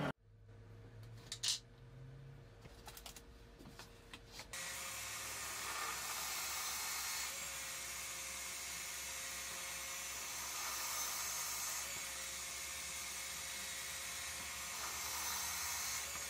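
Benchtop drill press motor starts about four and a half seconds in and runs steadily as its bit bores into wood. Before it, a quiet stretch with one sharp knock.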